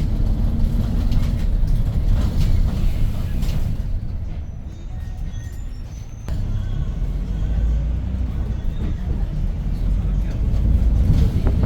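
Inside a moving city bus, a 2022 Hyundai New Super Aerocity: its CNG engine and road noise give a steady low rumble. The rumble eases off about four seconds in and picks up again abruptly just after six seconds.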